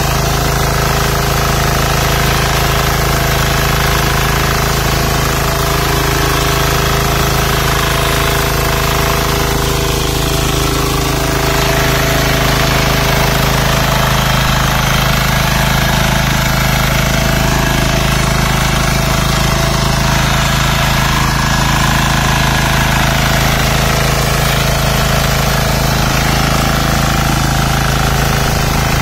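Texas Alligator 9DPE power weeder's diesel engine running steadily under load with a hammering knock, as its rotary tines churn through flooded paddy mud.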